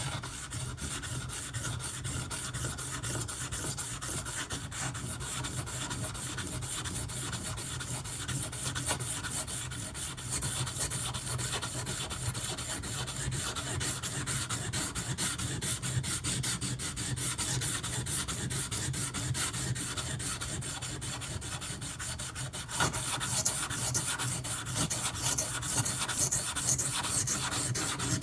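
A 154CM steel knife blade, its main bevel held flat with light pressure, being stroked rapidly back and forth on a Shapton Pro waterstone: steady scraping to thin the blade and convex the edge. The strokes get a little louder near the end.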